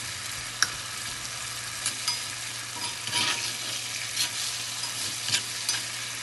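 Liver sizzling steadily in hot oil in a cast-iron pan while a metal spoon stirs it, scraping and clicking against the pan now and then.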